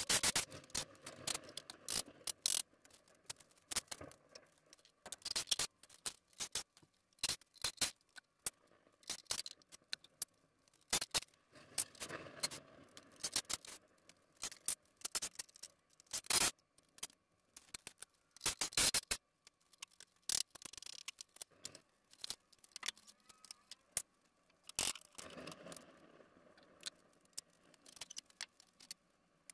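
Scattered knocks, clicks and scrapes of wooden crate boards being pulled off and handled as a shipping crate is taken apart.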